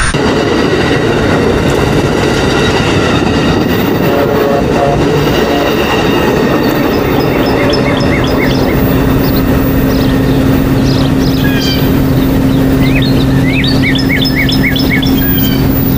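Loud, steady noise of a train running on the rails, with a low steady hum coming in about halfway. Birds chirp in short repeated trills over it in the second half.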